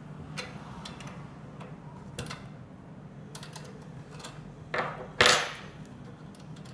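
Metal clicks and clinks of a number 10 spanner working on the tray knob's screw of a manual string hopper machine, scattered and irregular, with two louder clanks about five seconds in. A steady low hum runs underneath.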